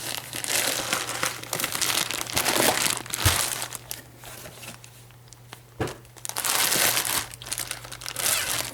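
Packing material crinkling and rustling as a box is unpacked by hand, in two long stretches with a quieter pause in the middle and a couple of light knocks.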